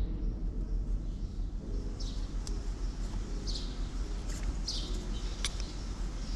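Small birds chirping a few times over a steady low rumble, with a couple of faint sharp clicks.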